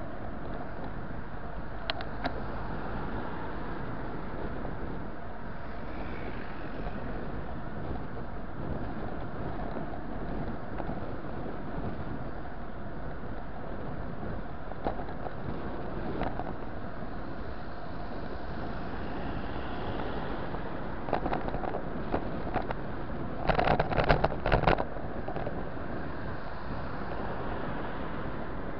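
Steady wind rush over the microphone of a bicycle-mounted camera riding at speed, mixed with road and traffic noise. A short burst of rattling knocks comes near the end.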